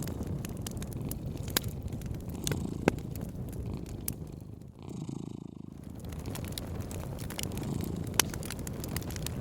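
A cat purring steadily, close and full, with a wood fire crackling over it in scattered sharp pops. About halfway through, the crackling drops out for a second or so while the purr carries on.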